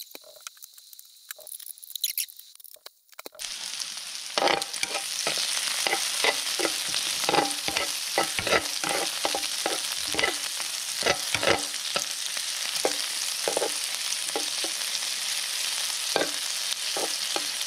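Pieces of boiled makchang (intestine) frying in a ridged non-stick grill pan on a portable gas burner: a steady sizzle with frequent sharp crackles. It is faint at first and comes up fully after about three and a half seconds.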